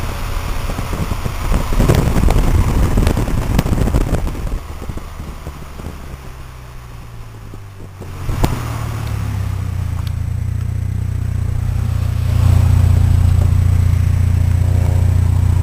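Cars driving side by side at speed: a steady low engine drone with road noise, and wind buffeting the microphone through an open window in the first few seconds. The engine drone grows louder about twelve seconds in.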